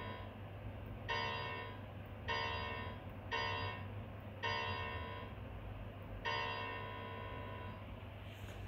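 The same synthesized bell-like note sounding five times, about a second apart, each starting suddenly and held briefly, as a magnet closes a pedalboard reed switch that triggers the note through a MIDI encoder. A brief rustle of handling noise near the end.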